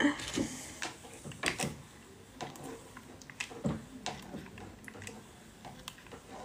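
Light, uneven tapping and clicking, about two taps a second, like fingers typing on a phone's touchscreen.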